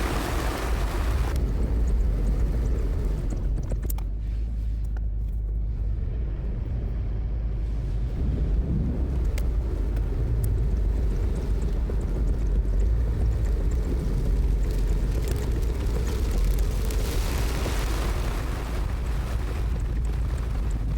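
Steady low rumble with a hiss above it, the noise of a moving vehicle and wind. The hiss thins out for a few seconds after the start and swells again near the end.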